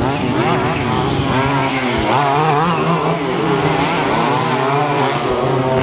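Small two-stroke petrol engines of 1/5-scale HPI Baja RC buggies racing, several at once, their pitches rising and falling over each other as the throttles open and close.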